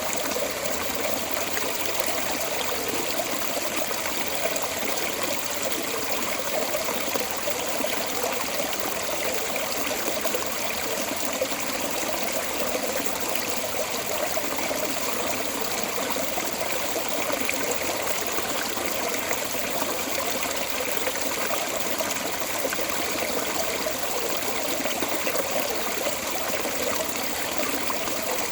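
Water flowing steadily out of a storm drain outlet, an even splashing trickle that doesn't change.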